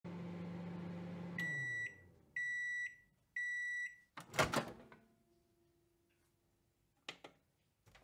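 Microwave oven finishing: its running hum winds down and falls in pitch, then three high beeps about a second apart signal the end of the cycle. A loud clunk follows as the door is popped open, and a couple of light clicks come near the end.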